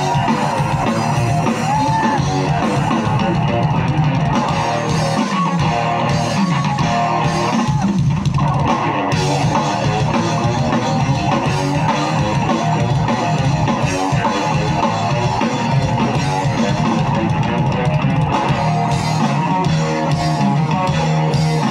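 Live rock band playing: electric guitars and a drum kit over amplified stage sound, at a steady level throughout.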